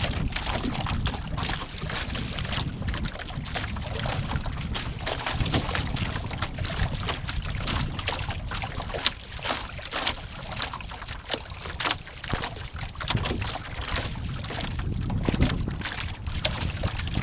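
Lake water splashing and slapping irregularly against the hull of a small 11-foot Snark sailboat under sail, over a steady low rumble of wind buffeting the microphone.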